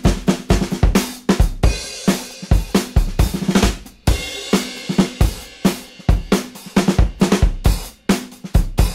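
Background music: a drum kit playing a busy, driving beat of kick drum, snare and cymbals.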